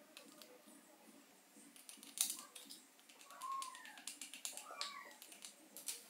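Faint clicks and light taps from small parts being handled on a workbench, with two short squeaks about three and a half and five seconds in.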